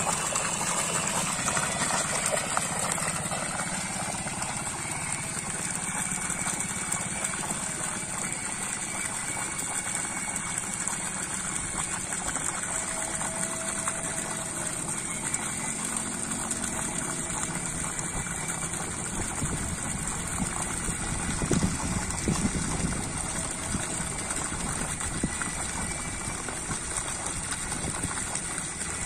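Full, unthrottled stream of water from a 2-horsepower deep-well submersible pump pouring out of a steel discharge pipe and splashing into a plastic drum, a steady gushing with a low hum underneath. The noise swells briefly about two-thirds of the way through.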